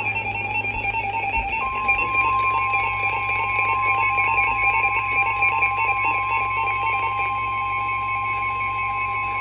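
NOAA Weather Radio emergency alert tones: a steady, pulsing electronic tone, joined about a second and a half in by a single pure warning alarm tone that holds on.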